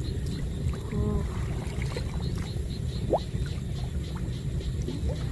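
Steady wind rumble on the microphone over water sloshing around the wader, with a faint short rising chirp about three seconds in.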